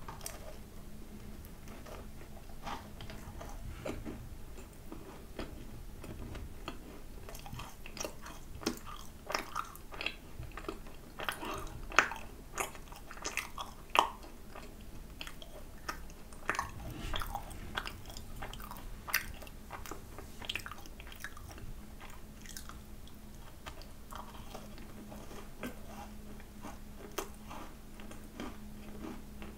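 Close-miked chewing and biting of a macaron: wet mouth clicks and small crunches, thickest through the middle, with a couple of louder crunches midway.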